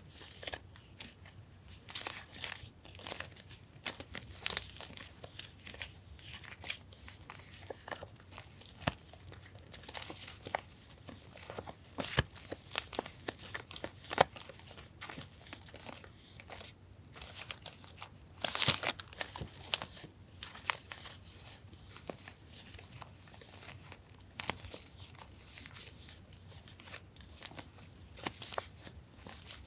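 Sticker sheets and background papers being handled and sorted: irregular crinkling and rustling with small taps and clicks, and one louder crinkle about two-thirds of the way through.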